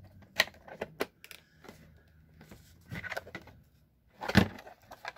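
Hard plastic hobby-knife kit case being handled: scattered clicks and rattles of its latch and the loose tools inside, with one sharper knock about four seconds in.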